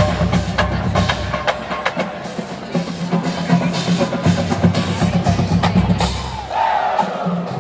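Marching band playing: sustained low notes over a drumline's regular sharp strikes, the low notes breaking off briefly near the end.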